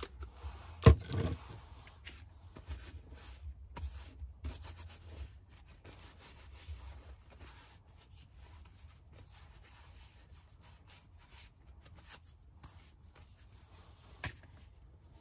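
Paper towel rubbing over summer squash and zucchini as they are wiped clean, with soft scuffing and handling noises. A sharp knock about a second in, and a small click near the end.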